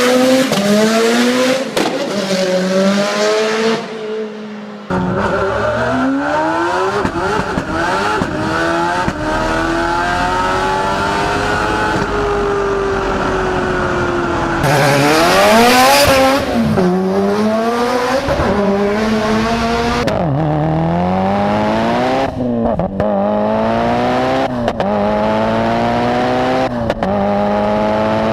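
Mitsubishi 4G63 turbocharged four-cylinder engines revving and accelerating hard in a series of clips, the pitch climbing and then dropping repeatedly as the car shifts up through the gears, with several quick shifts in a row in the last third. About fifteen seconds in a loud rushing burst rises over the engine.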